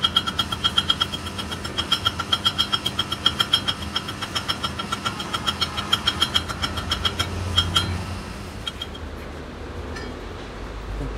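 Rapid metallic tapping on a steel tube, about five or six ringing strikes a second, stopping about eight seconds in.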